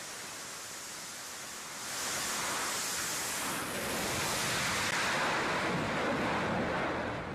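Steady rushing noise across an aircraft carrier's flight deck, swelling about two seconds in and holding.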